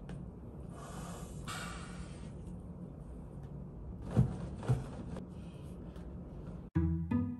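A steady low hum with two soft hissing rushes, then two thumps about half a second apart, at the pace of chest compressions on an adult CPR training manikin. Plucked string music starts near the end.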